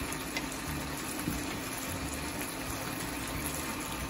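Mutton curry sizzling and bubbling steadily in a pot over the heat, with a faint steady low hum underneath.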